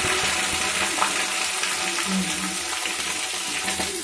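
Sliced onions sizzling in hot oil in a kadhai: a steady frying hiss, with a few faint clicks of a slotted spoon against the pan.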